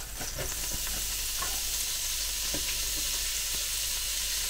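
Chopped dry-cure bacon sizzling as it goes into hot oil in the pot of a Ninja Speedi. The sizzle builds over the first second and then holds steady, with a few light clicks.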